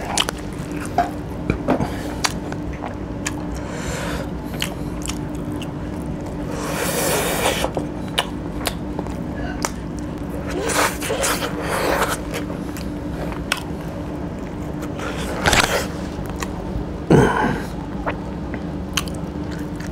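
Close-up eating sounds: chewing and sucking meat off chicken feet and bones in curry, with many wet clicks and lip smacks and several louder slurping sucks, over a steady low hum.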